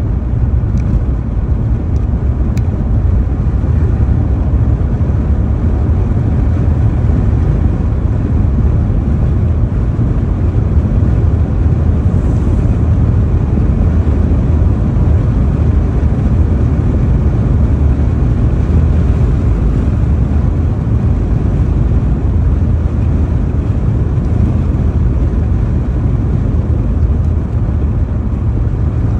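Steady low rumble of a car driving at road speed, heard from inside the cabin, with no change in pace.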